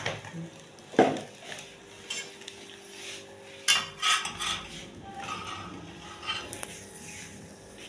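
Kitchen clatter: metal spoons and steel pots clinking and knocking a few times, the loudest knock about a second in, over a faint steady hum.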